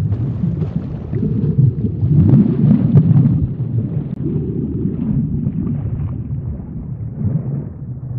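Underwater ambience sound effect: a steady low rumbling and rushing noise with a fine crackling texture, swelling a little near the middle and easing off toward the end.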